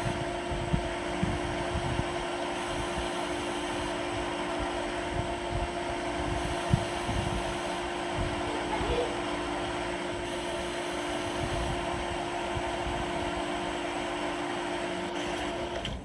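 CNC lathe running with a steady machine hum and occasional low knocks; the hum cuts off just before the end.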